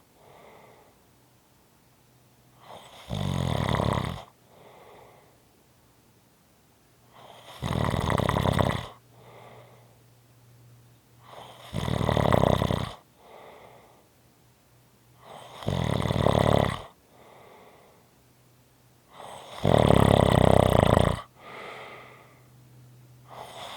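A person snoring in a slow, regular rhythm: a loud snore about every four seconds, each followed by a fainter breath.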